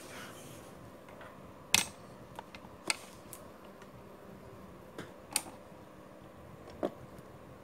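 Scattered sharp light clicks and taps, the loudest a little under two seconds in and the rest spread out singly, from a metal TV antenna coax plug and its cable being handled. A faint steady hum runs underneath.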